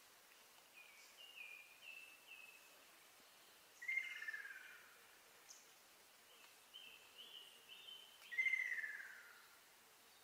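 Ruddy kingfisher calling: a descending rolling trill of about a second, twice, each time after a run of four or five short, higher bird notes.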